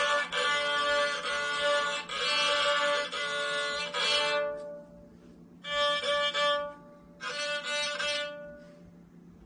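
Three-string talharpa (bowed lyre) with nylon strings, bowed with a black horsehair bow and tuned D-A-D: several strings sounding together, melody over a drone. Sustained strokes for about four and a half seconds, then two short strokes in the middle, then the strings ring off.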